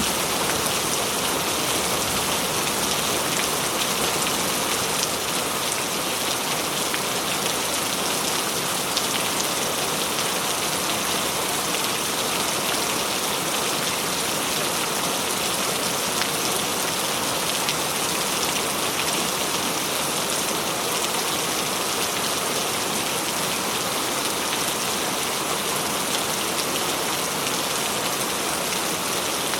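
Heavy rain falling steadily, a dense even hiss of drops on surfaces with fine pattering throughout.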